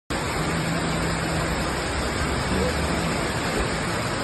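Waterfall: a steady, even rush of falling water, with faint voices underneath.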